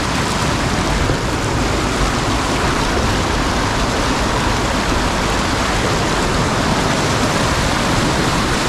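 Fast-flowing mountain river rushing close by: a loud, steady wash of water noise with no letup.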